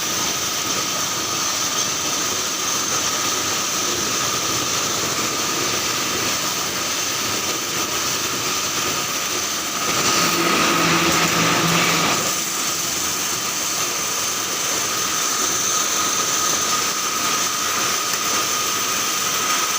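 Fence mesh welding machine running steadily, a continuous mechanical noise with a steady high whine. About halfway through it grows louder for about two seconds, with a low hum added.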